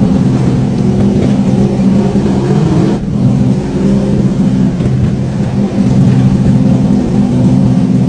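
Old plow truck's engine running steadily.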